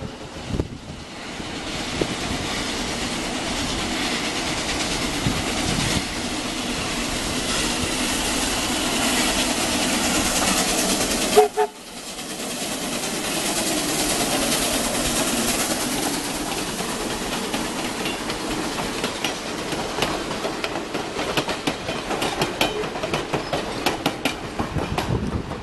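Mason County Logging Co. #7, a 2-6-2 tank steam locomotive, passing close, its dense steady noise building to a peak a little before the middle and then cutting out briefly. Its passenger coaches follow, with wheels clicking over the rail joints near the end.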